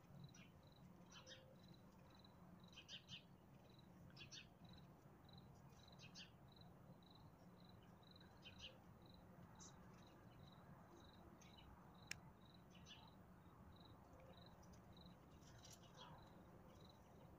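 Faint dusk ambience: a cricket chirping steadily about twice a second, with scattered short bird chirps and one faint click.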